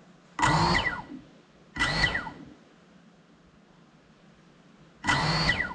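GEPRC Cinelog35 quadcopter's brushless motors blipped three times with the drone sitting on the floor, each short burst spinning up and then winding down in pitch. The second burst comes soon after the first, and the third a few seconds later.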